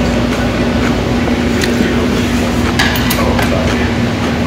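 Metal chopsticks and spoon clicking against a stainless steel rice bowl and a soup bowl, a few sharp knocks near the middle, over steady room noise with a low hum.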